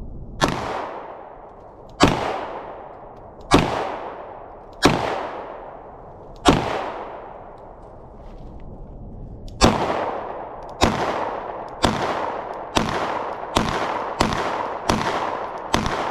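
A 9mm pistol firing thirteen shots, each with a short echo trailing after it. Five come slowly, about a second and a half apart. After a pause of about three seconds, eight more follow at a quicker pace, speeding up toward the end.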